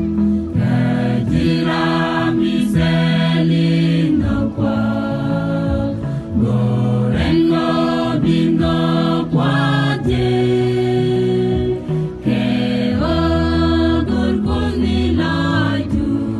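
A mixed choir of men's and women's voices singing a Christian song together, holding notes that change every second or so with short breaks between phrases.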